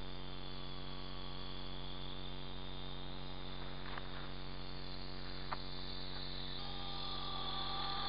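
Small electric radio-controlled model helicopter flying, a steady whine and hum, with a higher two-tone whine coming in about two thirds of the way through as it descends toward the water to land on its floats. Two faint clicks near the middle.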